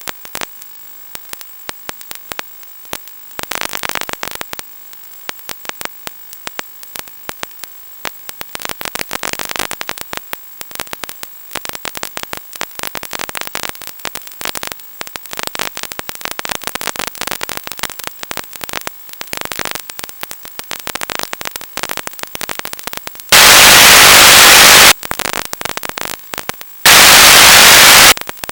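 Static from an analog 1.2 GHz FPV video receiver's audio channel: an irregular crackle of clicks throughout, broken twice near the end by loud bursts of full white-noise hiss, each about a second and a half long, as the weak video signal drops out.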